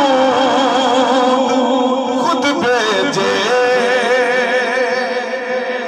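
A man singing a manqabat in praise of Imam Hussain into a handheld microphone, drawing out long, wavering melismatic notes without words.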